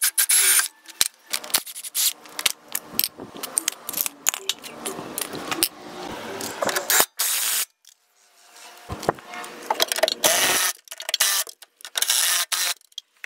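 Cordless impact wrench and impact driver hammering in short bursts on suspension bolts and strut-top nuts while coilovers are fitted to a Mazda Miata, between scattered clicks and clanks of tools and parts, cut together with sudden starts and stops.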